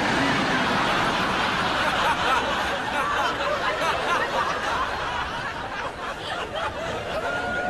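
An audience laughing, many voices at once, easing off slightly in the second half.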